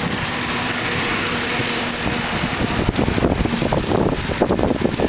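Rain falling, a steady hiss, with rougher low rumbling noise joining from about three seconds in.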